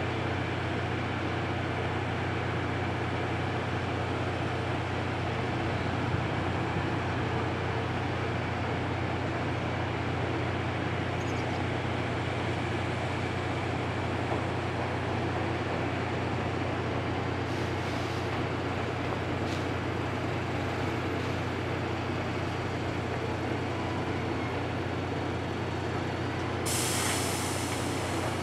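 Steam locomotive C58 363 working in a station yard: a steady low rumble and hiss, then a sudden loud hiss near the end.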